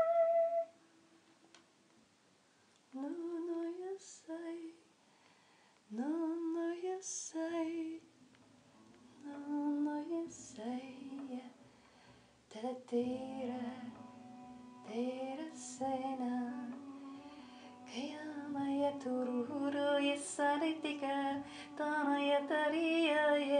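A woman singing wordless light-language phrases with sliding, swooping pitch, at first in short phrases separated by pauses. From about eight seconds in, a low steady drone sits under the singing as it grows denser and louder toward the end.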